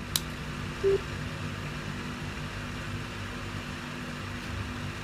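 Steady electrical hum and hiss from a speaker wired to an iPhone through a Lightning-to-3.5 mm adapter cable. A sharp click comes just after the start as the cable's Lightning plug is pulled and replugged, and a short low beep sounds about a second in.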